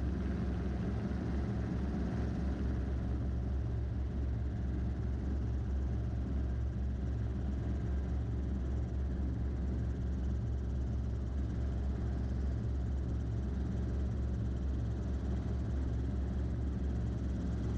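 Robinson R22 helicopter's engine and rotor running at takeoff power, a steady low drone with no change in level, heard from inside the cabin.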